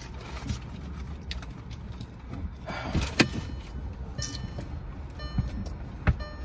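Low steady hum of a car interior with the engine running, with scattered knocks and clicks of things being moved about in the seats; the sharpest knock comes about three seconds in, another near the end.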